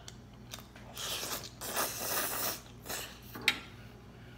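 Mouth noises of a person eating a forkful of spaghetti close to the microphone: a few chewing stretches about a second and two seconds in, and a short sharp click about three and a half seconds in.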